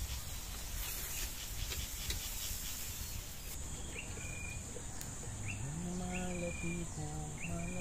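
Chicken sizzling on a charcoal grill with scattered crackles. Then repeated short bird chirps over a steady high insect buzz, and from about two-thirds of the way in, low humming in short held notes.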